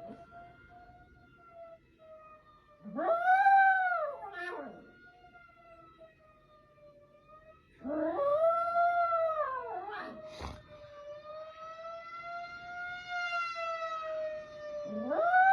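A dog howling three times, each howl gliding up and then falling away, over the steady wail of a tornado warning siren that slowly rises and falls in pitch. A single sharp click comes about two-thirds of the way through.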